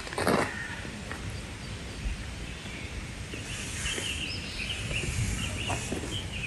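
Steady outdoor background noise by a river, with a brief rustle or splash right at the start and birds chirping over the second half.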